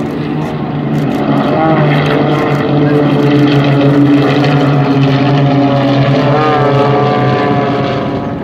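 Propeller aerobatic planes flying in a four-ship formation overhead, their piston engines droning steadily, with some shifts in pitch around two and six seconds in, and easing off slightly near the end.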